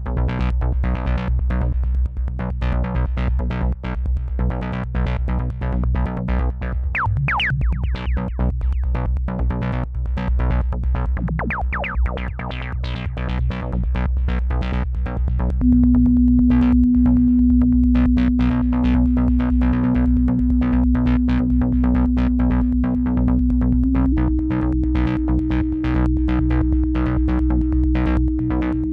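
Minimal experimental techno played live on a Maschine MK3 and a MiniLab 3 keyboard: a steady low bass under fast ticking percussion, with brief synth pitch sweeps around 7 and 11 seconds. About 16 seconds in, a loud held synth tone enters, stepping up slightly in pitch near 24 seconds.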